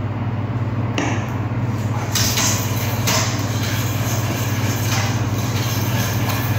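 A steady low mechanical hum, with a brighter hiss coming in about two seconds in and a few light knocks.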